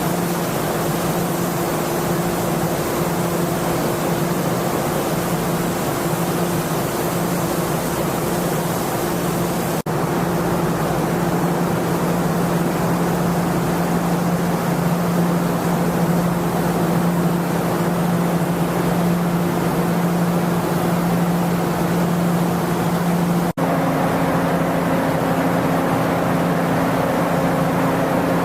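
Steady, loud mechanical roar with a constant low hum, broken by brief cuts about ten seconds in and again near the end, where the hum's pitch pattern changes.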